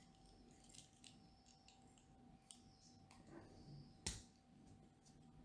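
Faint clicks and light rattles of plastic LEGO pieces being handled and pressed into place, with one sharper click about four seconds in.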